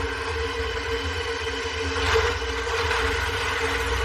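Steady drone of a DC-6 propeller airliner's piston engines in flight, a reenactment sound effect, with a slight swell about two seconds in.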